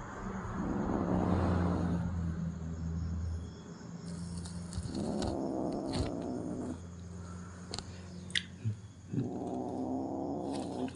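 A domestic cat making three long, drawn-out meows; the first is the longest and loudest, and a few short clicks fall between the later calls.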